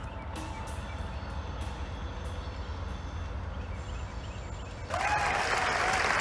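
Diesel freight locomotive approaching: a low engine rumble, joined about five seconds in by a sudden, louder rush of noise as it draws near.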